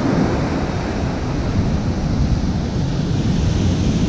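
Ocean surf breaking and washing up the sand in a steady rush, with wind rumbling on the microphone.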